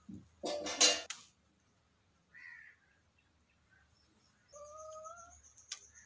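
Hungry kitten meowing: a loud, harsh cry about half a second in, a short high squeak in the middle, and a longer, steady meow near the end.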